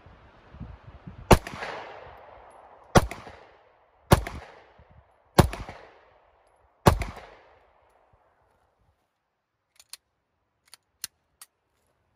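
Five 9 mm shots from a Glock 19 Gen 5 pistol, spaced about one to one and a half seconds apart, each followed by a trailing echo. A few light clicks follow near the end.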